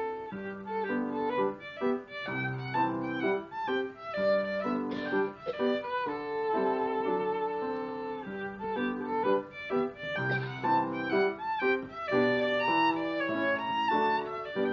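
Solo violin played with the bow: a quick, continuous run of notes that changes pitch every fraction of a second.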